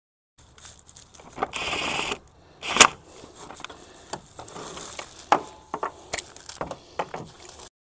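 Hand tools working on a car's engine bay: scattered metal clinks and knocks, a short rasp about a second and a half in, and one sharp clank near the three-second mark.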